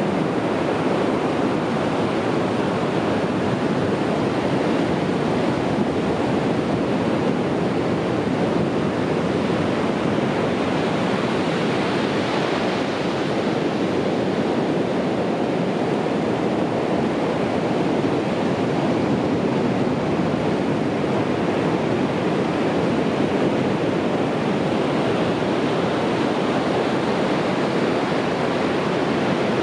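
Sea waves breaking on a beach: a steady, unbroken wash of surf, growing slightly brighter and hissier about twelve seconds in.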